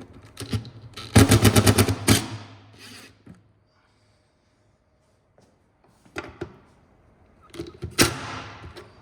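A loud rapid rattle of about ten sharp strokes in a second, about a second in, followed later by a few scattered knocks and one sharp knock near the end.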